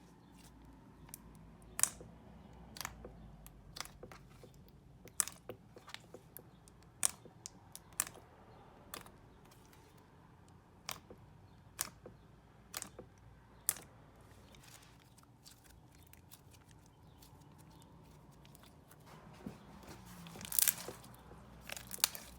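Slime being played with by hand: irregular sharp clicks and pops, about one or two a second, with a denser stretch of crackling near the end.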